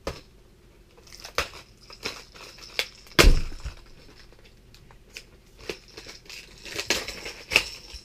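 Stiff plastic blister pack being pried and torn open by hand: irregular sharp crackles and snaps of the plastic, with one heavy thump about three seconds in and a cluster of crackles near the end.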